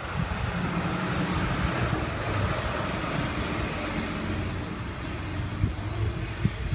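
Street traffic: a steady engine drone with a low rumble, from a vehicle running on the road beside the sidewalk.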